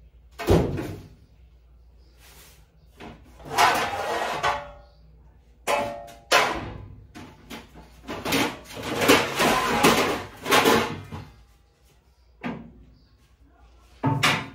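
Kitchen cupboards and drawers being opened and shut while baking trays are rummaged through, a string of sudden bangs and clatters, some with a brief metallic ring.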